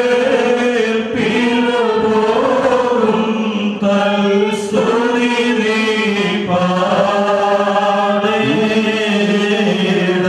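Liturgical chant sung into a microphone, the melody rising and falling over a steady held low drone note.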